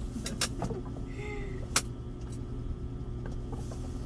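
A few sharp clicks and knocks of a parcel being handled and opened, the loudest about two seconds in, over a steady low rumble.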